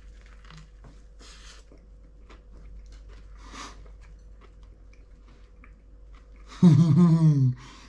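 A man biting into and chewing a mouthful of snapper fish burger, soft faint mouth noises, then a short loud voiced sound from him near the end.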